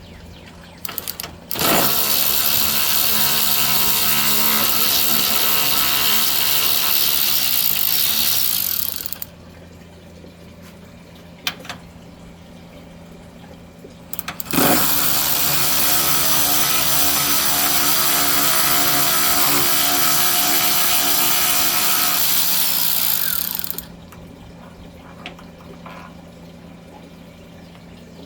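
Cordless power tool running in two long steady runs of about seven and nine seconds while backing out intercooler bolts, with a few clicks of tool and metal in the pauses.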